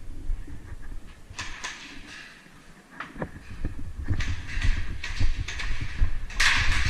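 Movement and handling noise: irregular low thumps and knocks with scuffing, rustling bursts and a few sharp ticks.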